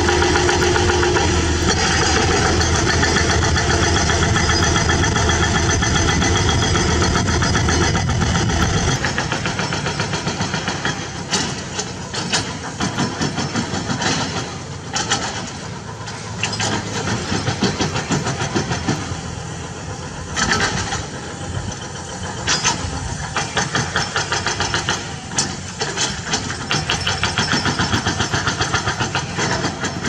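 Excavator diesel engines running under load while a hydraulic rock breaker hammers rapidly at the rock. After about nine seconds the sound changes to engines working with scattered sharp knocks and clatter of rock.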